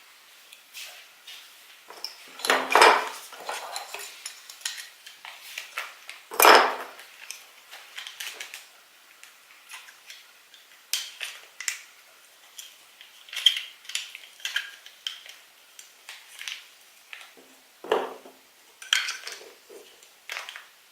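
Hard plastic toys and packaging being handled: irregular small clicks, clatter and rustling, with louder knocks about three seconds in, again about six and a half seconds in, and near the end.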